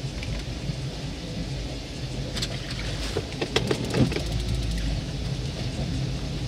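Boat motor running steadily at low revs, with a short burst of splashing about three and a half seconds in, as a hooked king salmon thrashes at the surface beside the boat.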